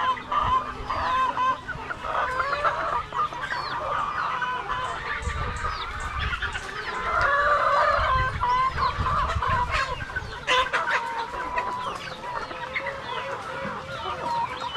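A flock of Rhode Island Red chickens clucking, many short calls overlapping, with a low rumble underneath in the middle seconds.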